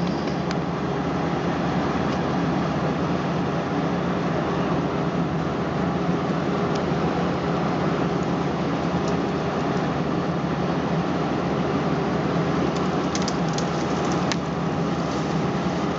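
An engine running steadily at a constant speed on tree-removal equipment. A few brief clicks and snaps come near the end.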